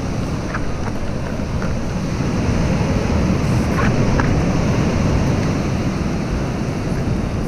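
Sea surf breaking and washing against a rocky granite shore, with wind rumbling on the microphone. The surge grows louder about halfway through.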